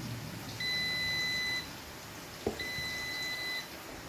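Kitchen appliance's electronic beeper sounding steady, even-pitched beeps about a second long, two in a row about two seconds apart, with a short click between them.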